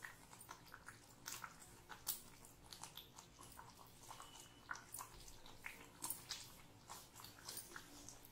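Masala gravy bubbling in a pan on the stove: faint, irregular small pops and crackles as bubbles burst in the thick sauce.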